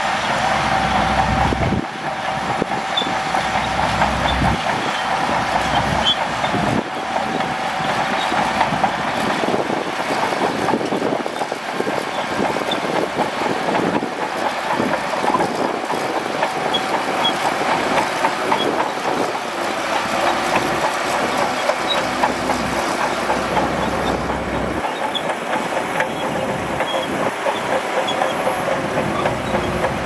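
Shantui DH17C2 crawler bulldozer pushing sand, its diesel engine running and its steel track chains clattering in a steady, dense rattle.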